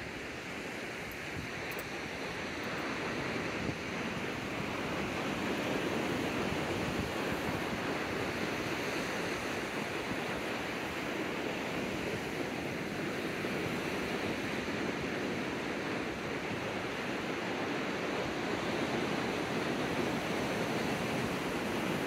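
Ocean surf washing steadily onto a beach, a continuous rushing that swells a little over the first few seconds and then holds.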